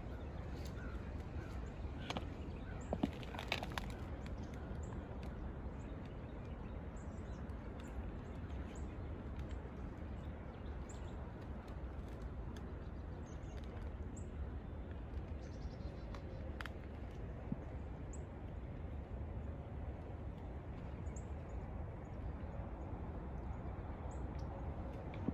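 Outdoor ambience of birds chirping now and then in short high calls over a steady low rumble, with a few sharp clicks and crackles in the first few seconds.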